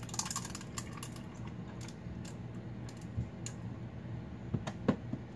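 Still-warm tea poured from a plastic gallon pitcher over ice cubes in a glass: the ice clicks and cracks in irregular sharp ticks, with a short pouring splash right at the start and the loudest cracks near the end.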